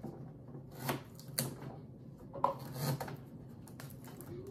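A few light knocks and clicks of kitchen things being handled and set down, spaced about half a second to a second apart, over a faint steady hum.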